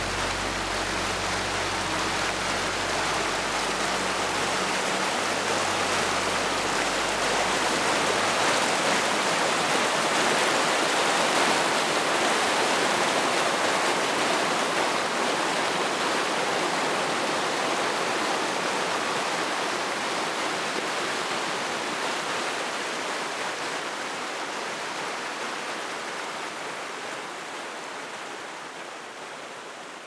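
Mountain stream rushing and splashing over rocks: a steady, even roar of water that swells a little in the middle and fades out near the end.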